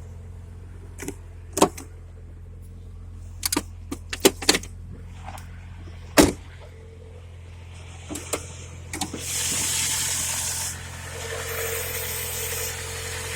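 UAZ Patriot's ZMZ-409 engine running steadily with no knock yet. Several sharp clicks and knocks come in the first half, and a loud burst of hissing noise about nine seconds in.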